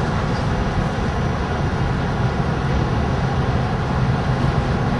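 Steady road and engine noise inside a moving van, with a constant low rumble.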